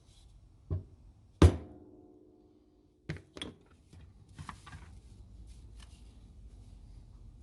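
Workshop tool-handling noises: a knock, then a loud metallic clank that rings briefly, followed by two more knocks and a few lighter clicks and taps.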